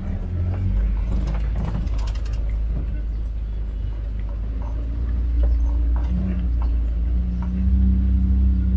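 A vehicle's engine running steadily while driving over a rough forest track, with scattered knocks and rattles from the bumps. The engine note grows louder in the second half.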